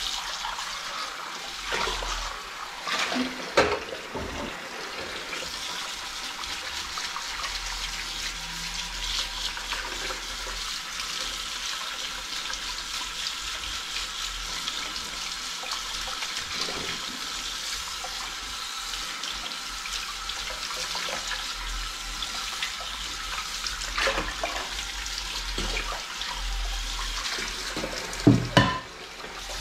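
Kitchen tap running steadily into a sink while dishes are washed by hand under the stream, with a few clinks and knocks of dishes; the loudest are two knocks near the end.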